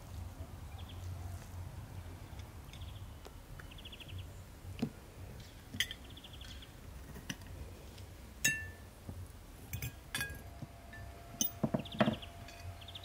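Fork and knife clinking and tapping against plates and dishes, a scattering of sharp clinks that come more often in the second half. Short, rapid bird trills chirp in the background.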